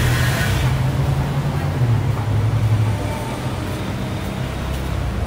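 Street traffic noise: a low vehicle rumble, heaviest over the first three seconds and then easing a little.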